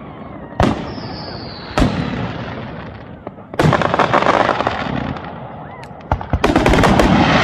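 Aerial fireworks bursting close overhead: sharp booms about half a second in, near two seconds and at three and a half seconds, the last followed by crackling. A high whistle falls slightly in pitch after the first boom, and a rapid string of reports comes near the end.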